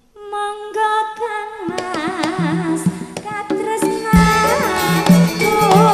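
Campursari band starting a langgam song: a sustained, wavering melody opens the music, percussion joins, and a heavy drum and bass beat comes in about four seconds in.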